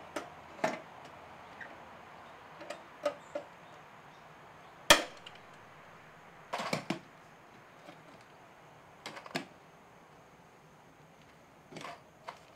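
Hand pop-rivet tool setting rivets in a sheet-metal box: a series of sharp clicks and snaps as the handles are squeezed, the loudest a single sharp snap about five seconds in.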